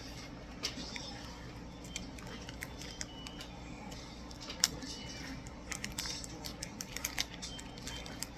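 Stiff plastic card packaging clicking and crackling irregularly as it is worked at and cut with wire cutters, over a steady low hum.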